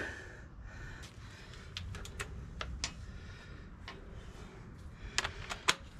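Scattered light metallic clicks and clinks of hand tools being handled, with three sharper clicks close together near the end.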